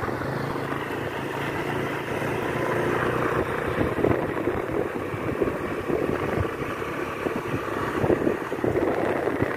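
Motorcycle running at road speed on a ride, with wind buffeting the microphone.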